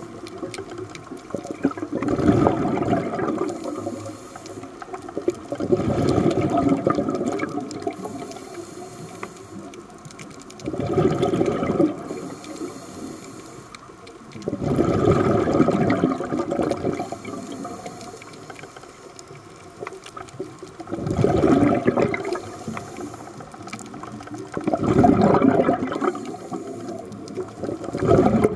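Scuba regulator breathing heard underwater: a gush of exhaled bubbles about every four seconds, seven times, with a fainter high hiss of inhaling between them.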